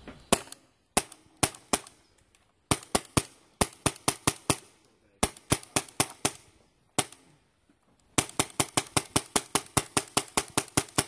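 Paintball marker, a Tiberius-type magfed pistol, firing sharp shots. At first they come singly and in short quick strings, then in a fast run of about five shots a second near the end.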